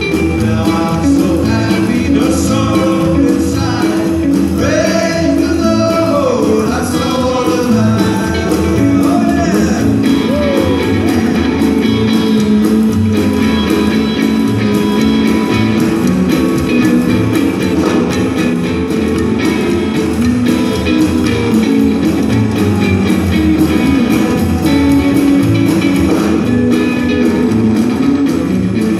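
Live rockabilly band playing: hollow-body electric guitar, upright bass and drum kit.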